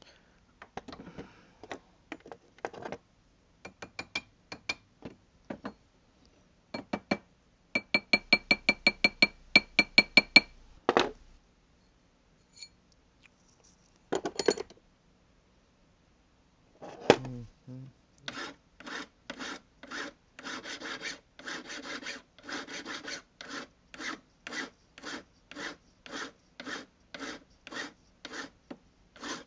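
Hand file stroking over a sized white gold ring, cleaning up the soldered joint. The strokes come unevenly at first, some with a faint metallic ring. After a pause of a few seconds they settle into a steady rhythm of about two strokes a second.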